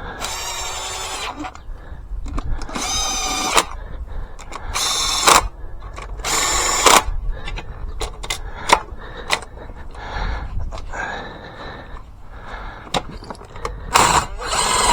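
A cordless drill/driver running in short bursts, four times in the first seven seconds and again near the end, spinning in the bolts of a dirt bike's stator/sprocket cover, with clicks and rattles of handling between.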